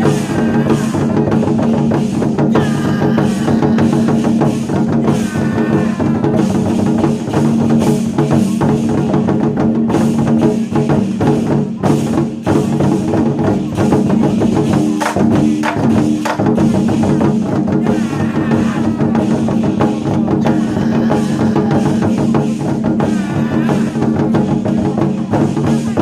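Chinese war drums (zhangu) beaten by a drum troupe in a fast, dense rhythm over a melodic backing track, the piece stopping abruptly at the end.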